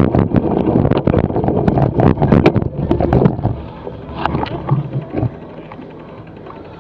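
Cyclocross bike clattering and rattling over rough sandy ground, with wind rumbling on the bike-mounted camera's microphone. The noise drops sharply about three and a half seconds in, a few last knocks follow, and a low steady background remains.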